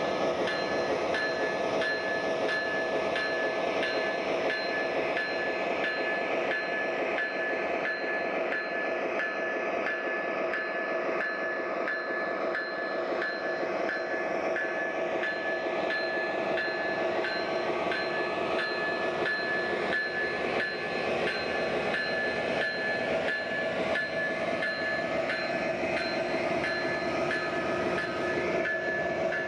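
O-scale model diesel locomotive running with its Proto-Sound 3.0 system playing a steady diesel engine sound through its onboard speaker, with held tones over the rumble and faint, regular clicks from the wheels on the track.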